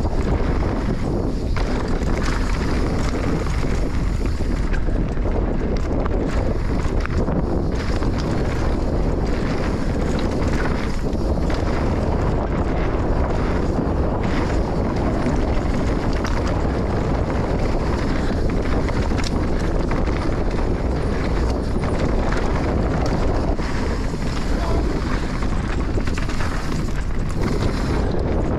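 Heavy wind buffeting on the microphone of a moving enduro dirt bike, a steady low rumble with the bike's engine buried underneath.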